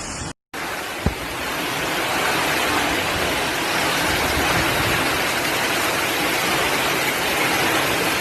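Steady rush of flowing floodwater, an even noise without pitch that swells slightly about two seconds in, with a single sharp click about a second in.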